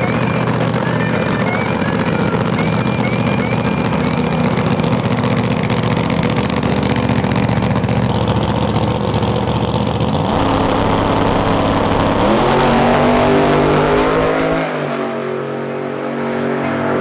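Drag-racing funny car engine running loud and steady through the burnout and staging, then a full-throttle launch about ten seconds in, the engine note rising as the car pulls away down the track. Near the end the sound changes abruptly to a thinner, different pattern.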